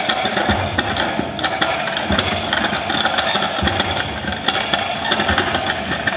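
Prepared acoustic guitar strung with wires and played through effects pedals into a guitar amplifier: a thick, steady wash of amplified noise shot through with many crackles and clicks as the wires are handled.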